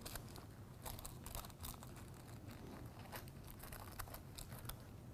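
Faint scattered clicks, ticks and rustles of screws and a screwdriver being handled, over a low steady hum.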